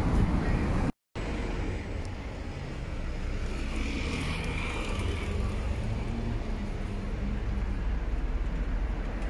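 Road traffic noise on a busy street, with a motor scooter's engine passing about four seconds in. The sound drops out completely for a moment about a second in.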